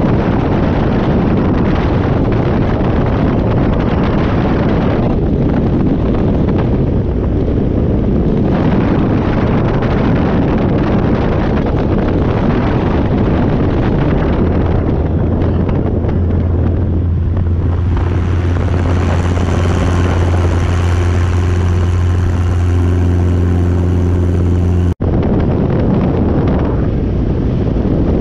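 Heavy wind buffeting on an outside-mounted camera on a Robinson R22 helicopter in flight. About halfway through, a steady low drone with several overtones rises out of the wind as power comes back in for the recovery at the bottom of a practice autorotation. The drone cuts off in a sudden break a few seconds before the end, and the wind noise carries on alone.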